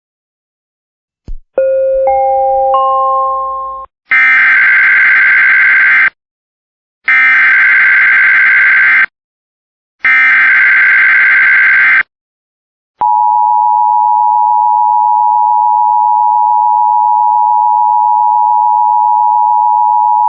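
Emergency Alert System tones. A short chime of three rising notes is followed by the SAME digital header: three identical two-second screeching data bursts with about a second's pause between them. Then comes the steady two-tone EAS attention signal, held for about eight seconds, which announces a voice alert.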